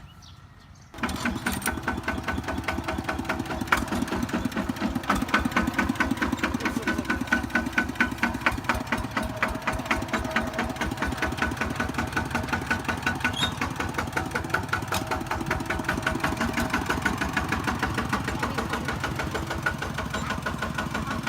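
Kubota tractor's diesel engine running steadily with an even knocking beat, coming in abruptly about a second in.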